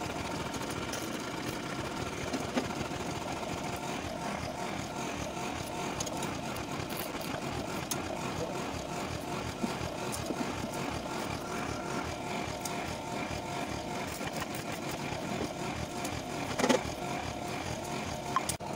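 A steady mechanical hum like an idling engine, with a few light knocks and one sharper knock near the end.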